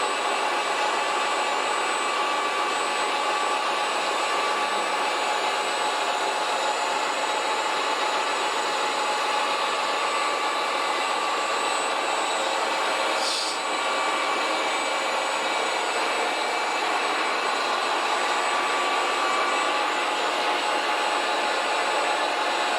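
Small electric motors and gearboxes of remote-control construction models whirring steadily, with several constant whine tones and a brief break about thirteen seconds in.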